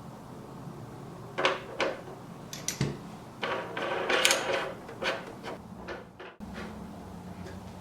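Irregular clicks, knocks and scraping of small parts being handled as the cone burr is screwed back onto a Baratza conical burr grinder, over a low steady hum.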